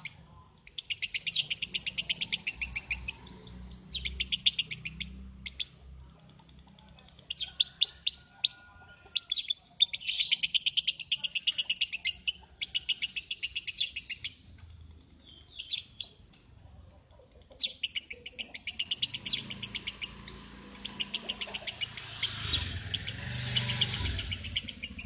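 Lovebird singing in bursts of rapid, evenly repeated chattering chirps, each burst lasting a second or two with short pauses between.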